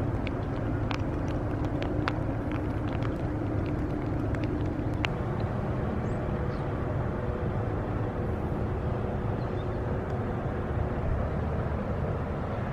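Outdoor harbour ambience: a steady low rumble of distant engines and wind, with a faint steady hum for the first few seconds and a few sharp ticks.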